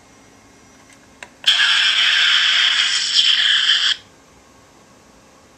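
Electronic sound effect from a Klingon Bird of Prey toy ship's speaker: a click, then a steady hissing noise lasting about two and a half seconds and stopping abruptly.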